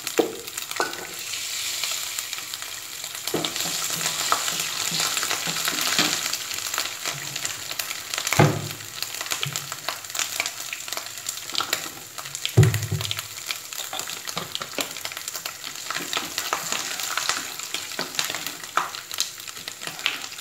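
Chopped coconut pieces sizzling and crackling in hot oil in a frying pan while being stirred with a wooden spatula. There are two louder knocks, one about eight seconds in and one about twelve seconds in.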